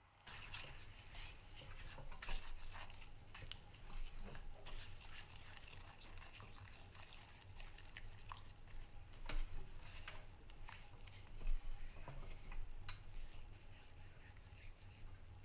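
Silicone spatula stirring and scraping cocoa powder into a thick paste in a small pan, with irregular soft clicks and taps of the spatula against the pan's sides and bottom.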